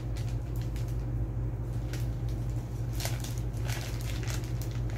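Light rustling and a few small ticks from a small plastic packet as an earring is handled and unwrapped, the clearest about three seconds in, over a steady low hum.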